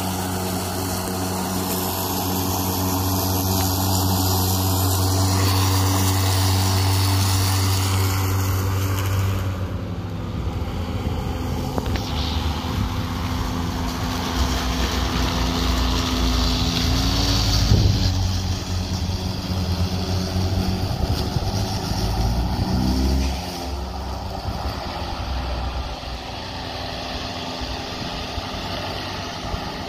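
DeWalt 20V brushless self-propelled lawn mower running and cutting grass: a steady motor-and-blade hum over the rush of cut grass. The pitch and loudness shift as the load changes, with a loud moment about 18 seconds in and a drop in level about 23 seconds in.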